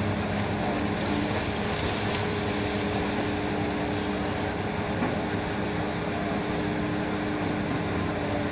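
Demolition excavator running steadily with its hydraulic shear jaws working on a concrete wall, a thin steady whine coming in about a second in and dropping out near the end.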